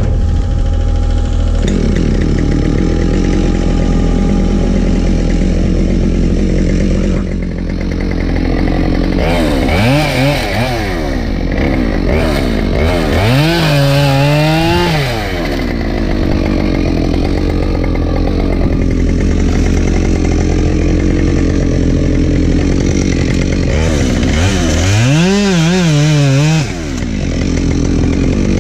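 Husqvarna 572XP two-stroke chainsaw running while cutting firewood, its engine pitch rising and falling about three times as it is revved up and let back down. A steady low engine drone runs underneath.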